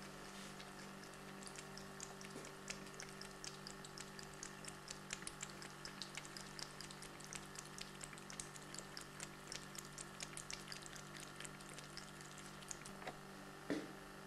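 Domestic cat lapping water from a sink basin: a quick run of small wet ticks, several a second, over a faint steady hum, with a single bump near the end.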